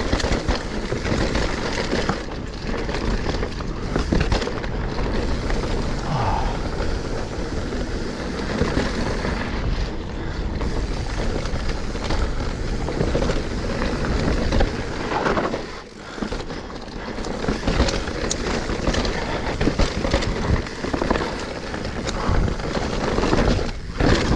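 Mountain bike, a Specialized Stumpjumper Evo alloy, riding fast down rough dirt singletrack: wind rushing over the microphone, tyres on loose dirt, and the bike rattling and clacking over roots and rocks. The noise eases briefly about two-thirds of the way through.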